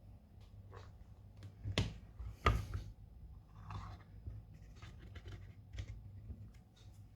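Small tools and parts being handled on a phone-repair bench: scattered light clicks and taps, two sharper knocks about two seconds in, each followed by a short scraping rustle, over a faint steady hum.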